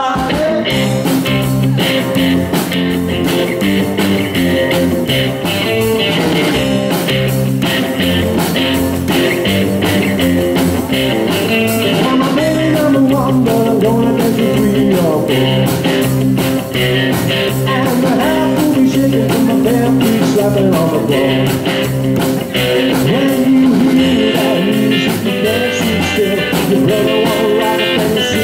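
Live rockabilly trio playing: electric guitar, upright double bass and drums, with a man singing over it in parts.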